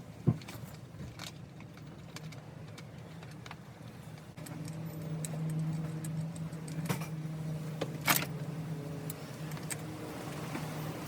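Scattered metallic clicks and clinks of hand tools and small metal parts being handled while reassembling a chainsaw. A steady low hum comes in about four and a half seconds in and carries on underneath.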